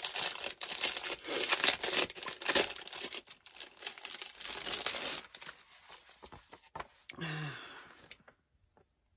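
Clear plastic sleeve crinkling and old paper rustling as a stack of vintage papers is handled and slid about inside the bag, with many small crackles. The rustling is busiest for the first five seconds and then fades away, with a brief hum of a voice about seven seconds in.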